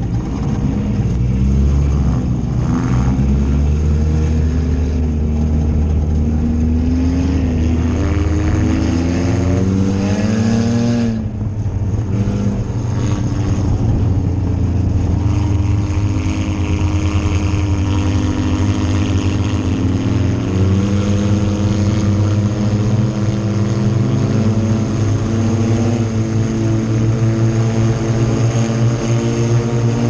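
Four-cylinder engine of an IMCA Sport Compact dirt-track race car heard from inside the cockpit, its revs climbing and falling as it is driven. There is a brief lift off the throttle about eleven seconds in, after which it runs on with the pitch rising again.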